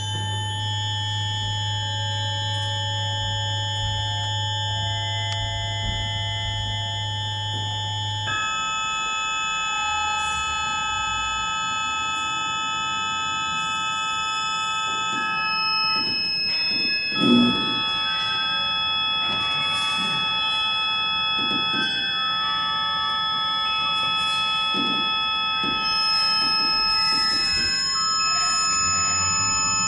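Live electronic music: several pure, steady electronic tones held together, each changing to a new pitch every few seconds, over a low hum that stops about 8 seconds in. A single brief thump is heard a little past the middle.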